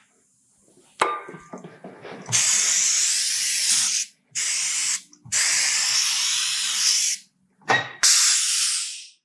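Compressed air hissing in repeated bursts, the longest about two seconds, while a new tire is mounted on its wheel, after a sharp click about a second in.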